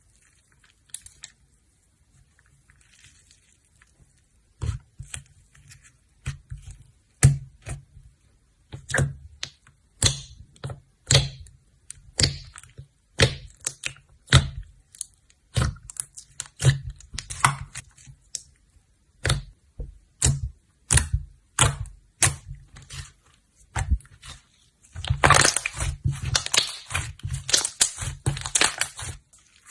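Slime being pressed and worked, giving sharp pops and clicks about once a second, then a dense run of crackling near the end.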